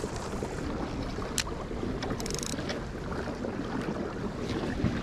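Wind buffeting the microphone and water rushing along the hull of a kayak under way, a steady rumbling wash. A single sharp click comes about a second and a half in, and a short rattle of rapid clicks follows a moment later.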